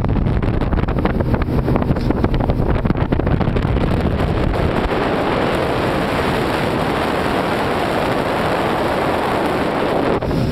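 Wind buffeting the microphone over the running motor and water rush of a small fishing boat underway, a loud steady rumble with no clear engine note.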